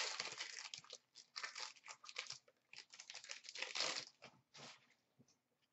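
Upper Deck hockey card pack being torn open, its foil wrapper crinkling in a quick run of crackles that stop near the end.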